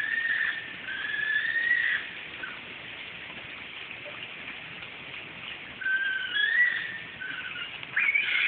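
An unidentified animal's long, wavering high-pitched cries: one of about two seconds at the start, another from about six to seven seconds in, and a louder one beginning near the end, over a steady hiss from the phone microphone. The recordist's friends liken it to a fox killing a rabbit.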